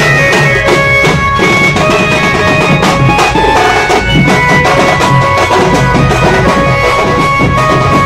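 Loud instrumental music with a held, reedy wind melody over a steady drum beat.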